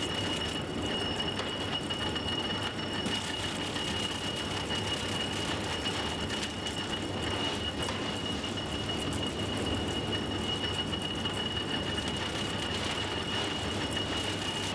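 Large circular saw blade on a log-cutting machine running as log sections are fed through, giving a steady high-pitched whine over a continuous clatter of machinery.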